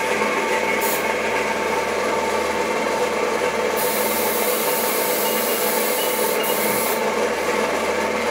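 Hiss of a gravity-feed paint spray gun spraying, strongest for about three seconds from just under four seconds in and in a short burst near the start, over a steady machine hum.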